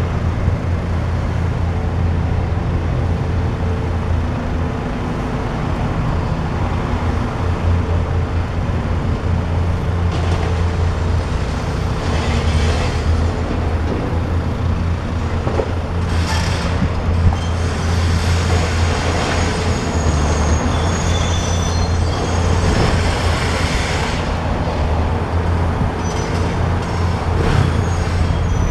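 Diesel engine of a long-reach demolition excavator running steadily under load, with stretches of crunching and clattering from about ten seconds in as masonry and debris are broken off the house.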